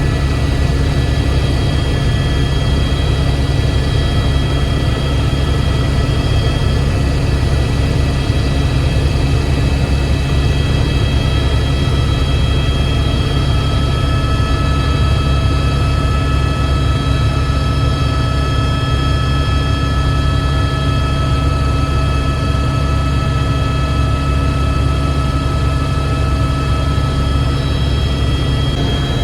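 Helicopter turbine and rotors running steadily: a heavy low drone with a constant high whine over it.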